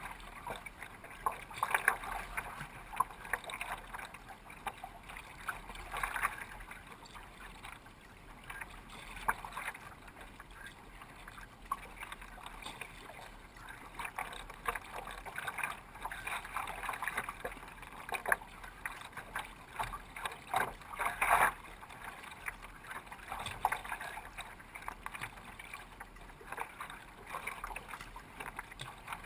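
Water splashing and lapping around a sea kayak as it is paddled through choppy water, with irregular splashes every second or two.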